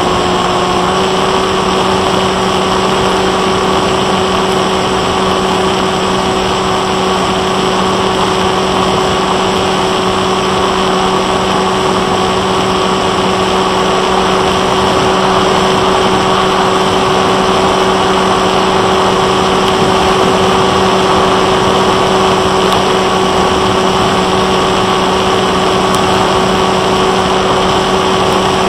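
Onboard audio of a Bixler 1.1 FPV plane in flight: its Turnigy 2826-6 brushless electric motor spins an 8x3.4 propeller with a steady hum at a few fixed pitches, over a constant rush of air noise.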